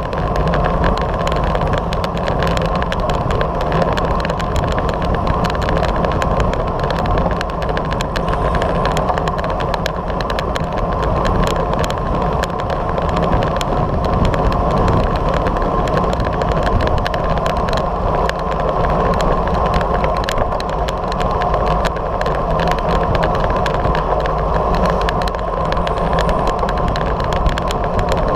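Steady wind rush and road rumble picked up by a bicycle-mounted action camera riding on asphalt, with many small knocks and rattles from the road surface.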